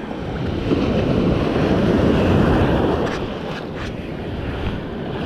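Surf washing in and foaming around the feet at the water's edge, swelling over the first couple of seconds and easing off about four seconds in, with wind buffeting the microphone.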